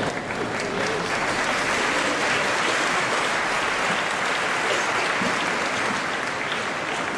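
Large seated crowd applauding, a steady wash of clapping.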